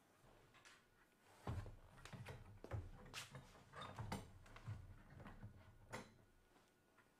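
Wooden panelled door being opened and pushed shut, with a string of latch and handle clicks and knocks starting about a second and a half in and dying away near the end.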